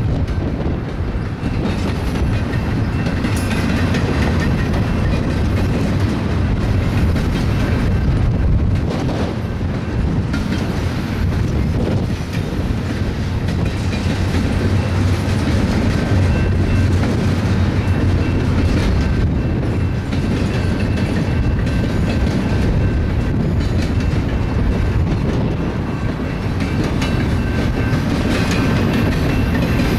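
BNSF double-stack container train rolling past: a continuous rumble with the wheels clattering over the rail joints.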